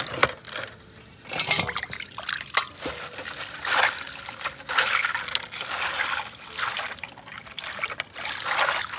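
Water poured from a metal bowl over mud-caked selenite crystals on a wire-mesh sifting screen, splashing and trickling through the mesh as they are rinsed clean. It comes in several uneven surges, one after another.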